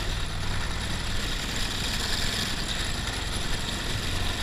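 IAME two-stroke kart engine running steadily at low revs, a constant low hum with no revving.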